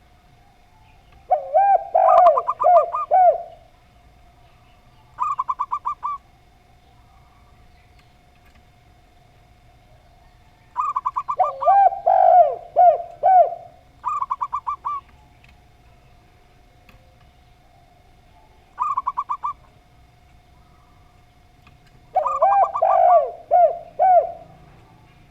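Zebra dove and spotted dove cooing. Three phrases of low, gliding coos run together with quick higher trills, and shorter rapid trilled bursts come in between. A faint steady hum runs underneath.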